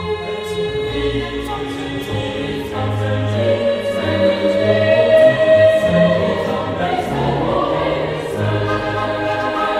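Background choral music: a choir singing long, held notes.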